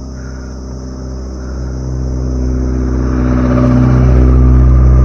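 A car overtaking from behind: its engine hum grows steadily louder and is loudest near the end as it passes.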